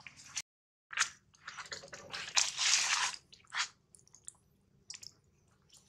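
Baby long-tailed macaque crunching food taken from a hand. Crackly crunching comes in short bursts over the first few seconds, then thins to a few faint clicks.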